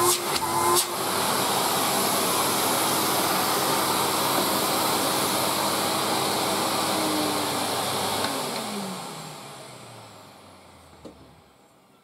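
A 1987 Electrolux Z2020 Super Boost cylinder vacuum cleaner running at full suction with a steady rush of air and motor hum. About eight seconds in it is switched off, and the motor winds down with its pitch falling away to near quiet.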